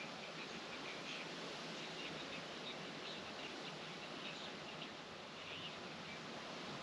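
Faint birds chirping now and then over a steady low hiss of background noise.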